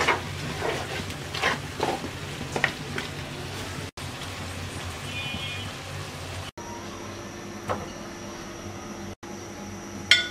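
Beef kala bhuna, nearly cooked down, sizzling in a pan while a wooden spatula stirs it, with scrapes and knocks of the spatula against the pan. Partway through the sizzle gives way to a steady hum, and a spoon clinks against a ceramic serving dish near the end.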